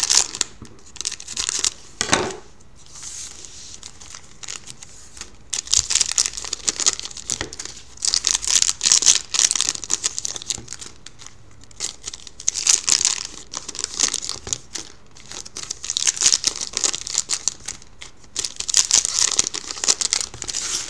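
Foil wrappers of Panini Certified hockey card packs crinkling and tearing in repeated bursts as the packs are cut open with scissors and handled.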